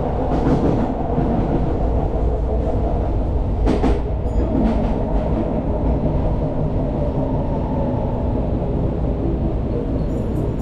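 Kyoto subway train running between stations, heard from inside the carriage: a steady, loud low rumble of wheels on rail, with a few brief sharp clicks and rattles.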